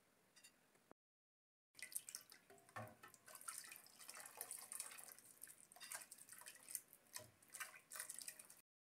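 Broth in a metal pot being stirred and ladled: irregular splashing and dripping with small clicks, starting about two seconds in.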